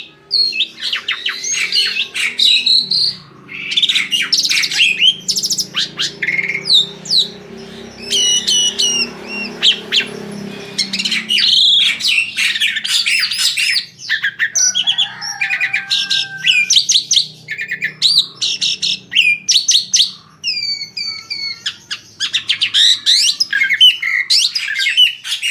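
Asian pied starling (jalak suren) singing a long, varied run of rapid chattering, whistled and squawking notes, phrase after phrase with only brief gaps.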